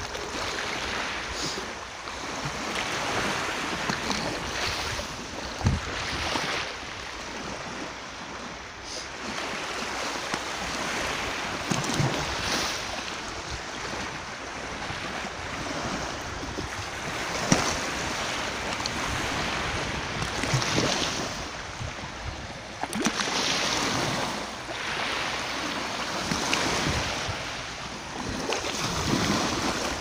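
Small sea waves washing in and out over a stony, pebbly shore, the surf swelling and fading every few seconds. Two brief sharp knocks stand out, about six seconds in and past halfway.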